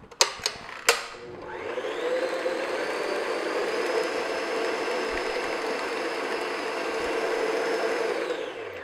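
Stand mixer with a flat beater running at a steady speed, beating an egg into cake batter. A few sharp clicks and knocks come first as the mixer head is lowered, the motor starts about a second and a half in, and it stops near the end.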